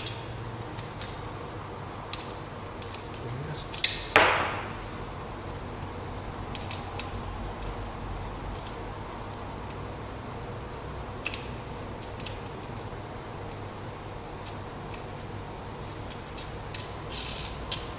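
Small metal clicks and taps of TV antenna hardware being fitted by hand: a washer, nut and aluminium element rod going onto the antenna's top bracket. About four seconds in, one louder metallic knock rings briefly.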